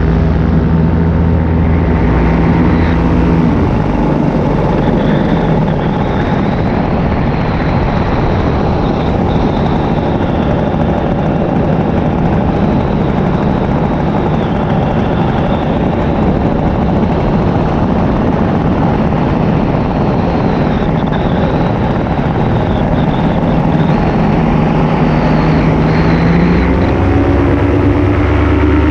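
Paramotor's two-stroke engine and propeller in flight, throttled back about three seconds in so that a steady rush of wind and engine noise takes over, then throttled up again near the end with its pitch rising.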